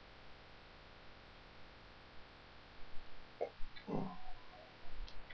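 Steady faint microphone hiss. About three and a half seconds in there are a couple of brief, low mouth noises from the narrator, like a breath or a murmur.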